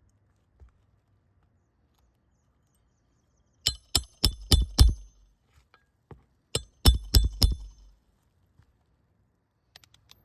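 Hammer striking a roof snake nail-setting tool to drive roofing nails back into a replacement shingle: two quick runs of about five sharp metallic blows each, a couple of seconds apart.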